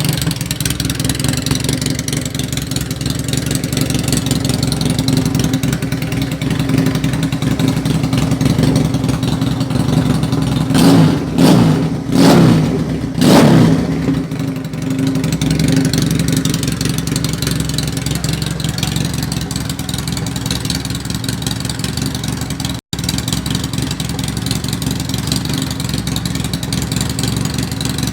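Keeway Patagonian Eagle 250 motorcycle's V-twin engine idling through a custom trumpet exhaust, blipped four times in quick succession about halfway through, each rev rising and dropping back to a steady idle.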